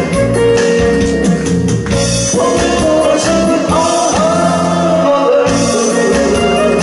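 A woman singing into a microphone over amplified backing music.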